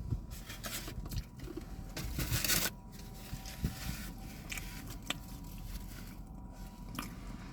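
Close-miked chewing and eating sounds, soft and irregular, with a brief louder crinkling rustle about two seconds in.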